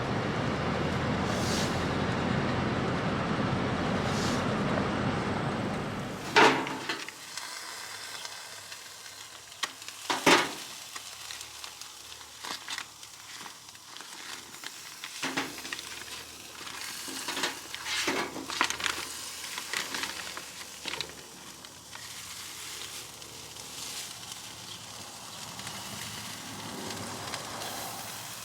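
Steady road noise of a vehicle driving, ending about six seconds in. Then food sizzling on a barbecue grill, with scattered sharp clicks and clanks of cooking utensils.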